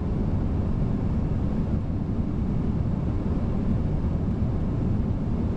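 Steady rushing noise on the flight deck of an Airbus A340-600 airliner on final approach: airflow and engines, low and even throughout.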